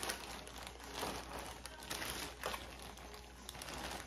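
Plastic takeout bag crinkling and rustling as it is handled and opened, with an irregular run of small crackles.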